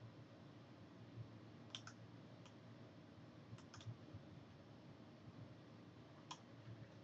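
Faint computer mouse clicks over low room tone: a quick double click under two seconds in, a single click, another close pair near four seconds, and one more click past six seconds.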